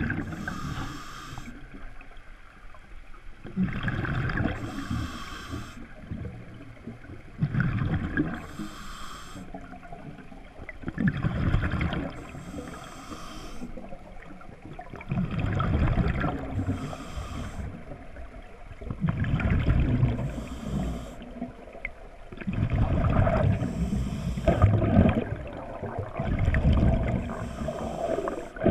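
Scuba diver breathing through a regulator underwater: a hiss on each inhale and a rush of exhaled bubbles, about one breath every four seconds, eight breaths in all.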